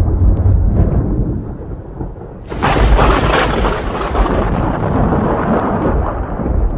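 Thunderstorm: a low rumble of thunder fades away, then a sudden loud thunderclap breaks about two and a half seconds in and rolls on.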